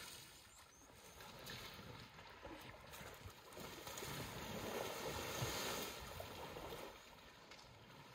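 Outdoor noise of wind and water at a waterhole where elephants are drinking and bathing. It swells for a couple of seconds midway, then drops back.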